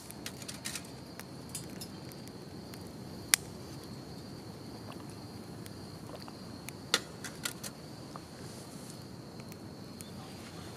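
Wood fire burning in a small titanium wood-burning camp stove, giving scattered sharp pops and crackles, the loudest about three and seven seconds in, over a steady high insect trill.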